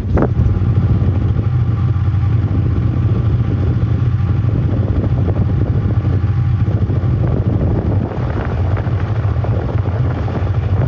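Snowmobile engine running steadily under way, easing off slightly about eight seconds in.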